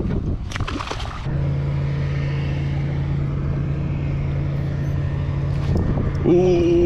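Small electric trolling motor on a fishing kayak, switched on about a second in and then running with a steady, even hum. Before it comes a short burst of wind or handling noise.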